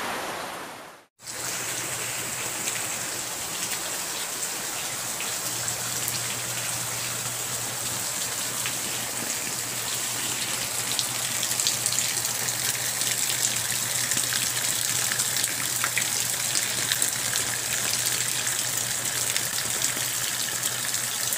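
Steady rain falling, a continuous hiss with many individual drops ticking through it. The sound dips out briefly about a second in, and a low steady hum runs underneath.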